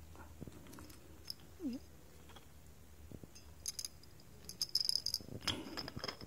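Aluminium baton-flashlight sections and battery holder being handled and screwed together: faint clicks and taps, then brief high-pitched metal scraping of the threads, busiest near the end.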